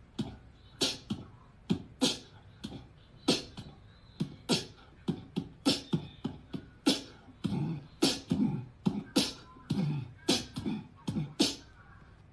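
A percussive beat of sharp clicking hits in a quick, uneven rhythm, about two to three a second, with deeper, lower-pitched sounds joining in during the second half.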